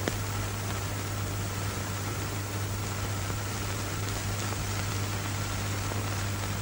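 Steady hiss and low mains-like hum of a worn old film soundtrack, with no other sound apart from a single click at the very start.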